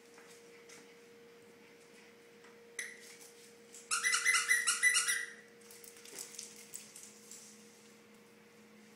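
Squeaky dog toy squeezed rapidly: one short squeak, then a quick run of about eight evenly spaced high squeaks lasting a second and a half.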